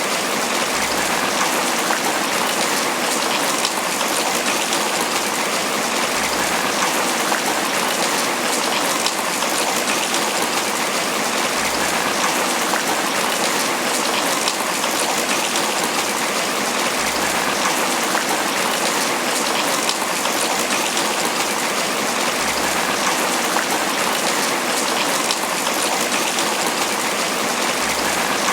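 Steady tropical rain falling on banana leaves: a dense, even patter of drops that does not let up.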